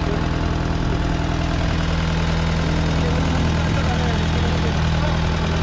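Engine running steadily with an even low hum, and faint voices underneath.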